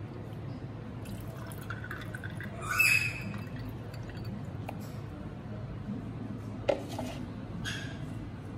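Lemonade poured from a plastic jug into stemmed glasses over ice, trickling and dripping. A ringing glass clink about three seconds in is the loudest sound, with a sharp click later on.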